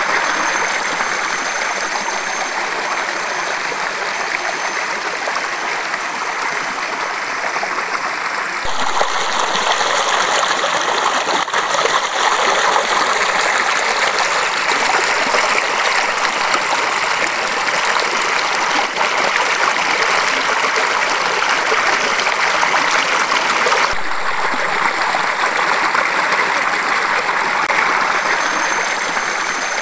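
Waterfall pouring into a pool: a loud, steady rush of falling and splashing water, its tone shifting abruptly twice, about nine seconds in and again near twenty-four seconds.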